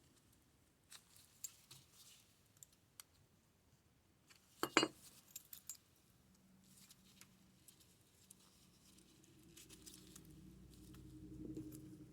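Faint small metallic clicks and taps from a Yale pin-tumbler lock and shim being worked by hand, with a louder clatter of clicks about five seconds in. A low rumble of handling noise builds near the end.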